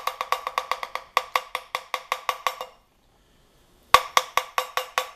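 Fast, even knocking, about seven or eight knocks a second, that stops for about a second midway and then starts again: an oil pump pickup being rapped on a steel plate to knock out pieces of broken timing chain guide.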